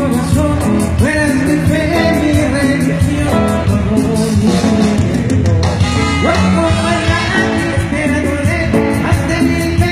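Live band playing a song with a singer, amplified through the arena's sound system and heard from within the crowd.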